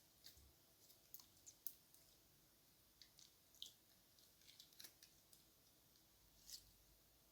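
Faint, irregular little clicks and crackles of stiff, over-activated slime being squished in the hands.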